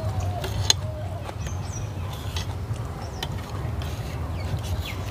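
Short wet clicks and smacks of eating by hand, over a steady low rumble, with a bird chirping briefly about a second and a half in.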